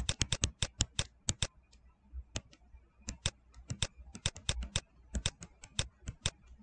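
Stylus tip tapping and clicking on a tablet screen while handwriting: quick, irregular clicks in clusters, with a short pause about two seconds in.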